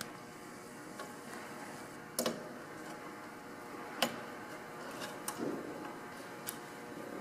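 A few scattered sharp clicks and knocks, the loudest about four seconds in, from air-line tubing and fittings being handled and pushed onto a valve body, over a faint steady hum.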